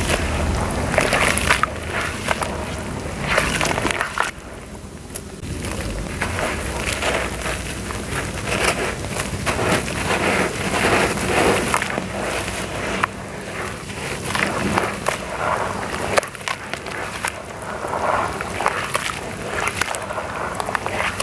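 Hands crumbling dry sand-and-clay clumps into water in a plastic basin: a steady run of splashing and sloshing, thick with small crackles from the chunks breaking apart. Toward the end the hands swish through the muddy, dissolved mix.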